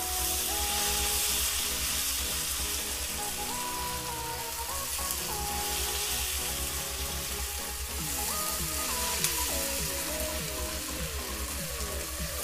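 Sliced onions sizzling as they fry in hot oil in a kadhai, stirred now and then with a wooden spatula, at the stage of browning to light golden. A simple background melody plays over the sizzle.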